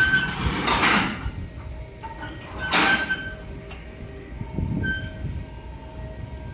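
Port loading machinery running as a crane loads steel billets onto a cargo ship: a steady low rumble with faint whining tones, broken by two short hissing bursts about one and three seconds in.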